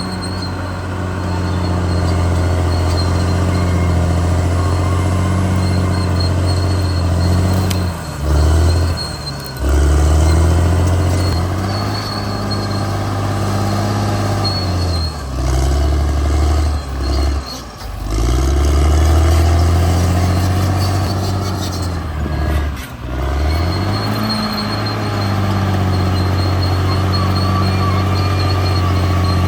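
CAT D6R XL bulldozer's diesel engine running hard, a steady deep drone whose pitch sags sharply and climbs back several times: about a quarter of the way in, around the middle, and again about three quarters through.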